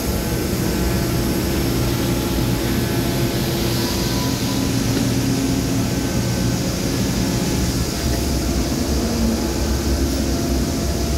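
Steady whir of a running machine with a low hum underneath, even in level throughout.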